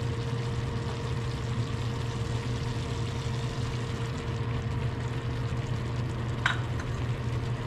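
Raw shucked oysters slid from a bowl into a pan of simmering tomato sauce with a wooden spatula, over a steady low mechanical hum. One sharp tap near the end.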